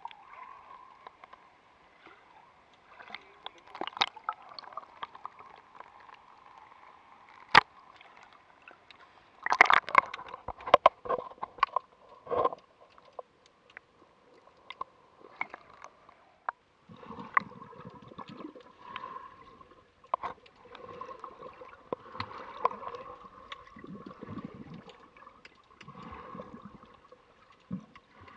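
Sea water sloshing and gurgling around a camera held at and under the surface among kelp, muffled, with scattered sharp clicks and knocks, the loudest cluster around ten seconds in. In the second half, low rumbling surges of water join in.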